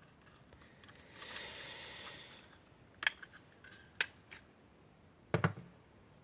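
Handling of a small plastic multimeter while it is being taken apart. There is a rustle of about a second and a half, then a few sharp plastic clicks and, near the end, a louder double knock as parts are set down.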